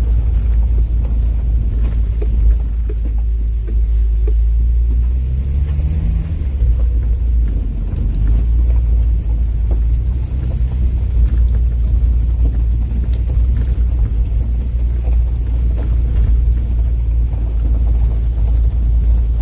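Low, steady rumble of a 4x4 driving slowly along a rough grass-and-gravel track: engine and tyre noise, with a brief change in engine note about five seconds in.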